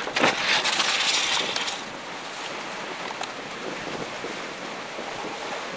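Hurricane-force wind and driving rain buffeting a car, heard from inside the cabin, with a louder gust surging in the first two seconds and then a steady rush. The wind is shifting at the edge of the hurricane's eye.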